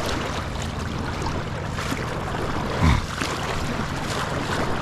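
Steady rush of fast river current in a tailwater, with a low rumble, and one short, loud falling sound about three seconds in.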